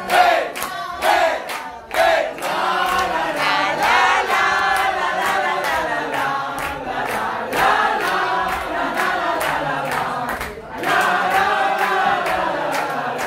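Concert crowd cheering and chanting together in many voices, with hand claps, after the band's music has stopped.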